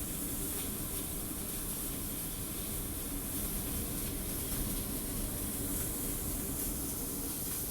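Snowstorm wind blowing steadily, a low rumble of wind on the microphone under an even high hiss.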